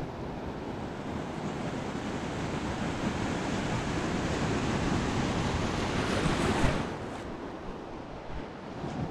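Ocean surf washing in shallow water: a wave's foamy wash swells over several seconds, is loudest about six and a half seconds in, then falls away.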